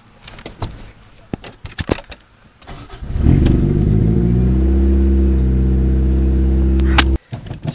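A few clicks, then about three seconds in the Toyota Corolla GTS's 1.6 L 4A-GE four-cylinder starts and runs at a steady, loud idle through its damaged exhaust. The sound cuts off suddenly near the end.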